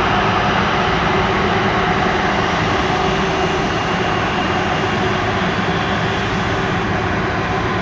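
Air Transat Airbus A330-243's twin Rolls-Royce Trent 700 turbofans running at low taxi power as the airliner taxis toward the runway. It is a steady jet whine and rumble, with a few held tones over it.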